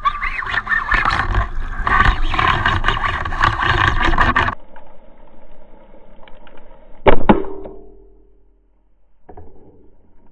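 Loud rushing underwater noise that cuts off abruptly about four and a half seconds in. About seven seconds in, a speargun fires at an amberjack: one sharp, very loud crack with a short ringing tone that fades over about a second.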